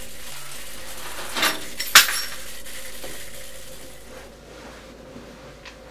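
A ring of keys clinks sharply once, about two seconds in, just after a brief rustle. Under it runs a steady low hum that fades away after about four seconds.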